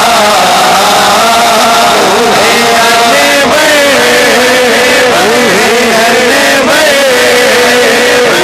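Men singing a naat, an Urdu devotional hymn, into microphones through a loud PA. The voice carries long held notes that waver and slide in pitch, without pauses.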